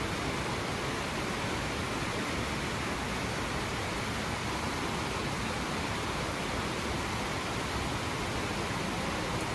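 Steady, even rush of heavy rain and flowing floodwater.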